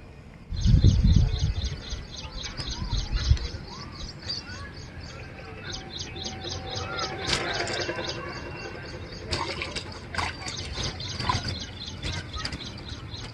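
Rapid, regular high-pitched chirping, about seven notes a second, runs through nearly all of it. A heavy low rumble comes from about half a second to three and a half seconds in. In the last few seconds there are splashes of a hooked tilapia thrashing at the surface.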